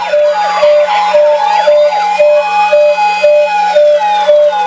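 A miniature toy ambulance's electronic siren sounding a fast two-tone hi-lo pattern, about two high-low cycles a second. Sweeping tones overlap it for the first two seconds, and a faint steady hum runs beneath.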